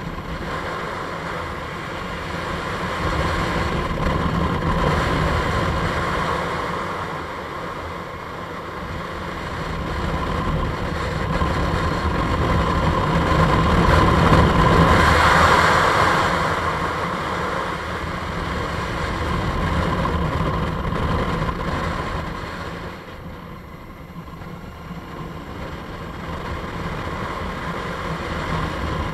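Motorcycle engine running under way, mixed with wind rushing past the camera; the sound swells and eases several times and is loudest about halfway through.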